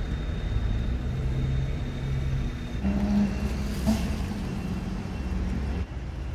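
Motor vehicle engine running steadily nearby with a low rumble, its tone stepping up about three seconds in. A brief crinkle of the paper food wrapper comes near four seconds.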